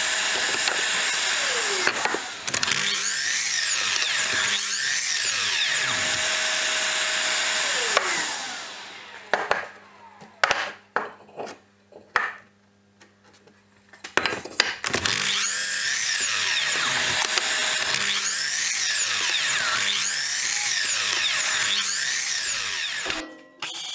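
Electric miter saw running and cutting small blocks of wood, its whine dipping and recovering in pitch with each cut. About eight seconds in the motor winds down and a few sharp knocks follow, then the saw runs and cuts again until it stops just before the end.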